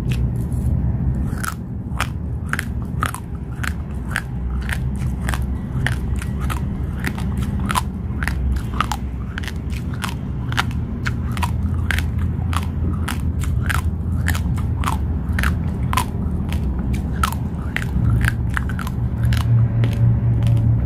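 Raw basmati rice being chewed: the dry grains crack between the teeth in a steady run of sharp crunches, about two to three a second.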